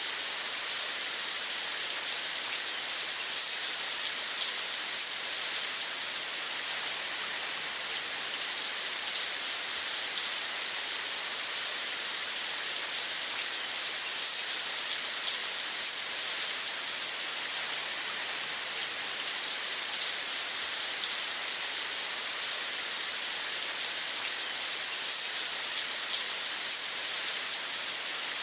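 Steady rain falling: an even, unbroken hiss, brightest in its upper range.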